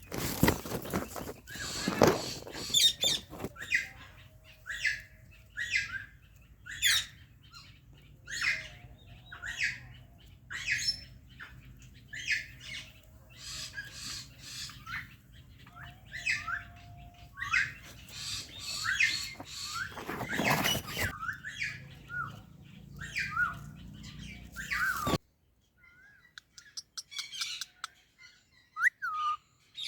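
Parrots calling with repeated short, sharp chirps and squawks. Two loud bursts of rustling noise come at the start and about two-thirds of the way through. The background hum drops out suddenly near the end, leaving only the calls.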